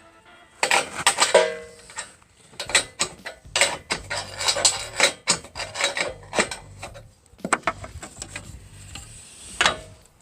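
Irregular sharp clicks and knocks with some rubbing, from hand work on the sawmill track during levelling.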